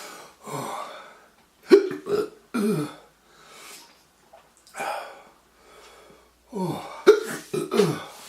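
A man's short, falling, strained vocal sounds and breathy exhales, in two clusters about two seconds in and near the end, as he reacts to the burning heat of a ghost pepper in his mouth.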